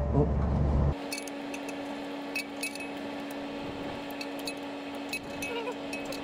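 Scattered light metallic clinks and taps of hand tools and small metal parts being handled, over a faint steady hum. A louder low rumble cuts off suddenly about a second in.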